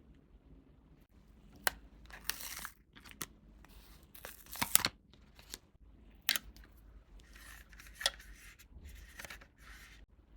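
Packaging being torn open and handled by hand: a string of short rips and crinkles with a few sharp clicks, the loudest about halfway through.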